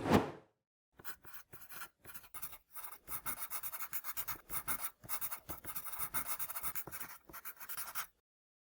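Irregular, rapid scratching and rustling in quick strokes, several a second, that stops abruptly about eight seconds in.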